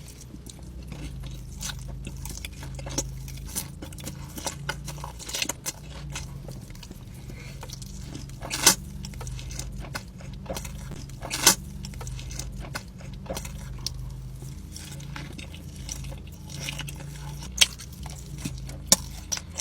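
Close-miked ASMR eating: a person chewing and biting food, with wet clicks and crackles and a few sharper, louder crunches.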